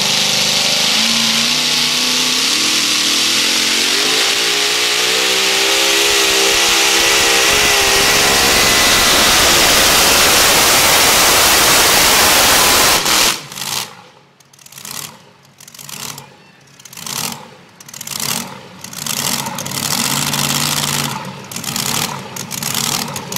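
Blown, multi-cylinder pulling engine at full throttle hauling a weight-transfer sled, its pitch climbing as it gathers speed. About thirteen seconds in the engine shuts off abruptly, and a quieter sound follows that rises and falls about once a second.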